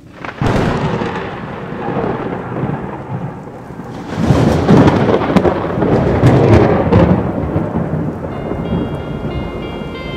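Rumbling noise like thunder and rain that swells twice, louder the second time. A few high music notes come in near the end.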